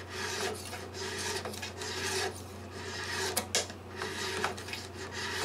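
Metal file rasping back and forth on a guitar fret, in repeated short strokes. The fret's sides are being beveled to dress out dents and bring it to a point at the top, without taking height off the fret.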